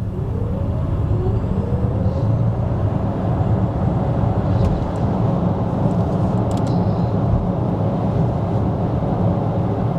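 Mercedes EQC electric SUV accelerating hard from a standstill: a deep road and tyre rumble builds within the first second and then holds steady. A faint electric-motor whine rises in pitch over the first couple of seconds.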